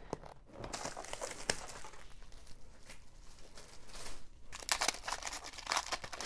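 Plastic card wrapping being torn open and crinkled by hand, in two spells of rustling with sharp crackles: unwrapping a hobby box of trading cards and its packs.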